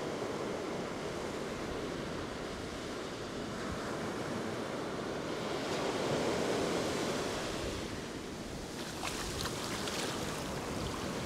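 Ocean surf breaking and washing up a sandy beach. It swells louder about six seconds in, and near the end a shallow wash of foam fizzes in around the feet.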